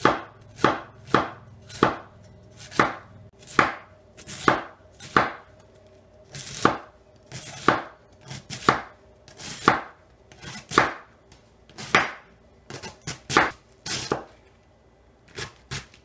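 A large kitchen knife slicing thin shreds off a cabbage head onto a wooden cutting board, a crisp crunch and knock with each stroke. The strokes come about one or two a second, in short runs with brief pauses.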